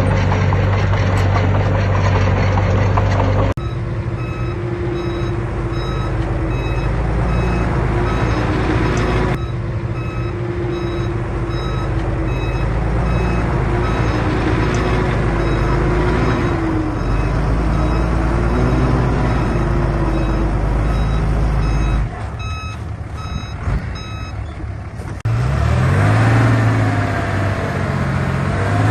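Heavy diesel earthmoving machinery running, with a reversing alarm beeping again and again over it. The engine sound changes abruptly several times.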